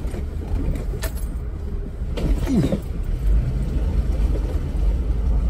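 2013 Jeep Wrangler's 3.6-litre V6 running in two-wheel drive as the Jeep crawls through tall grass and mud, heard from inside the cabin as a steady low rumble. A sharp knock comes about a second in.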